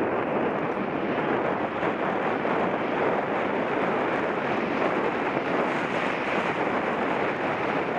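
Steady wind rushing over the microphone and riding noise from a mountain bike moving along the trail, with no single knock or tone standing out.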